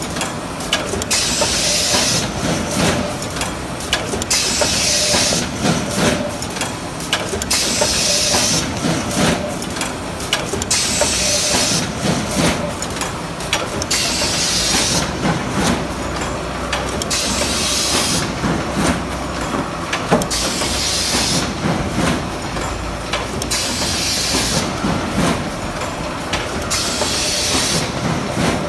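PBW580S twin-loop wire binding and punching machine running: a steady mechanical clatter with a sharp hiss that comes again and again, about every two and a half seconds.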